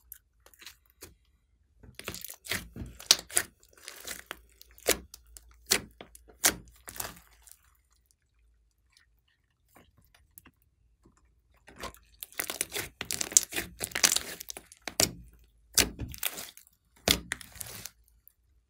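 Thick slime with clay mixed in being stretched, pulled and folded by hand, giving sticky crackling, popping and tearing sounds. The sounds come in two spells with a few quiet seconds between them.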